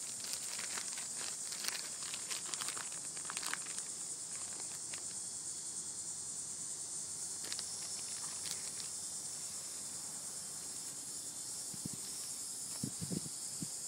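A steady, high-pitched drone of insects, with scattered light clicks and rustles in the first few seconds.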